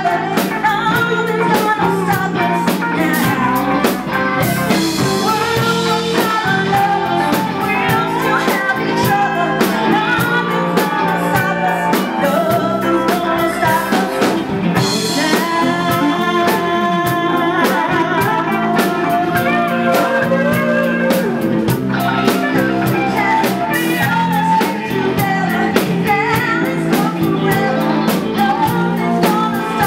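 A live band playing: a woman singing into a microphone over a drum kit and guitar.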